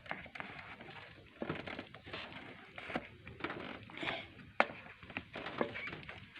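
Irregular small clicks, knocks and scrapes of hand tools and metal parts as an idle air control valve is screwed back into place on the engine.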